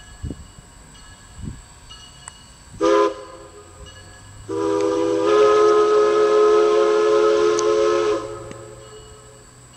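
Steam locomotive whistle blowing a short blast, then a long blast of about four seconds, with a hiss of steam over it, while the locomotive draws slowly nearer.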